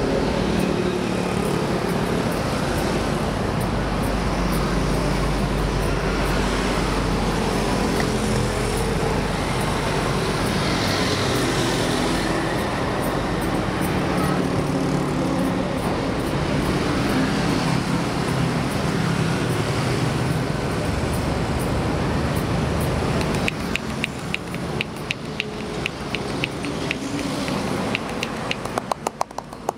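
Steady highway traffic noise. From roughly three-quarters of the way in, a rapid series of sharp slaps from hand chops on a bare back, quickening near the end.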